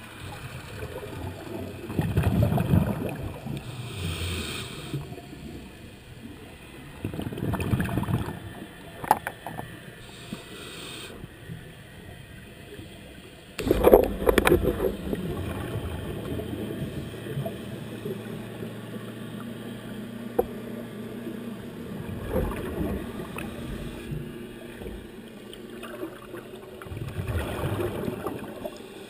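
Scuba regulator exhalation bubbles, heard underwater through a GoPro housing: about five muffled bursts of bubbling every five to eight seconds, one breath after another.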